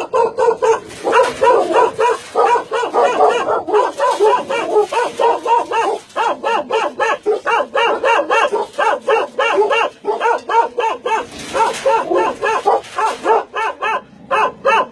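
Dogs barking rapidly and continuously, several barks a second overlapping, with a short lull about eleven seconds in.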